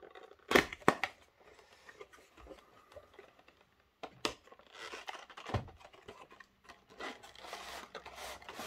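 Cardboard box of a model railway coach being handled and opened: two sharp clicks just under a second in, then rustling and scraping of the cardboard flap and the clear plastic tray as the insert is pulled out.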